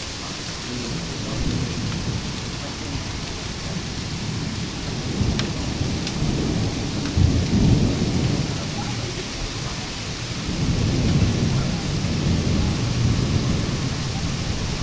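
Thunder rumbling over a steady hiss of rain. The deep roll swells to its loudest about halfway through, eases off, then rises again a few seconds later.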